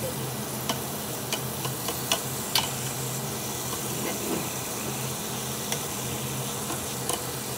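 Marinated duck meat sizzling steadily on a round tabletop barbecue grill, with a few sharp clicks of a metal spatula against the grill as the meat is stirred. A steady low hum runs underneath.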